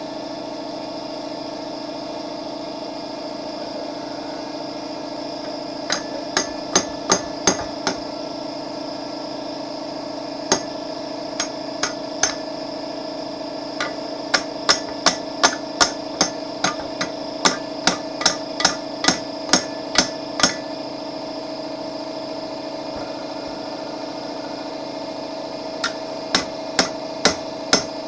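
Hammer striking a rusted steel John Deere hitch ball mount: runs of sharp metal-on-metal blows, up to about two a second, with pauses between the runs. A steady machine hum runs underneath.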